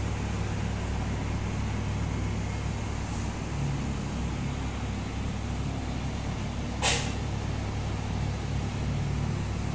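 Steady low drone of road traffic, with one short, sharp hiss about seven seconds in.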